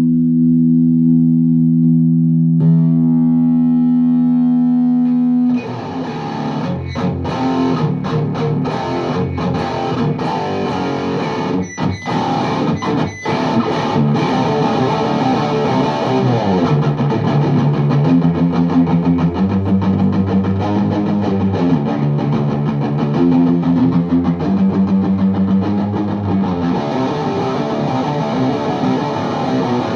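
Distorted electric guitar (a Les Paul Custom) through a high-gain VHT Deliverance D60 valve amp and a 4x12 cabinet. A chord rings out held for about five seconds, then gives way to a fast, choppy riff with a couple of short stops, then to a riff of shifting low notes.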